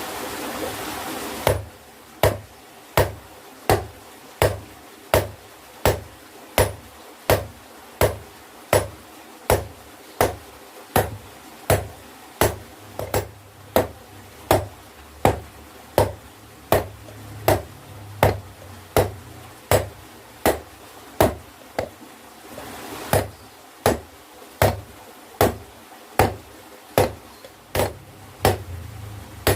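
Blacksmith's hand hammer striking steel on an anvil in steady, evenly spaced ringing blows, about one and a half a second. A steady rushing noise comes before the hammering starts and again during a short break about three quarters of the way through.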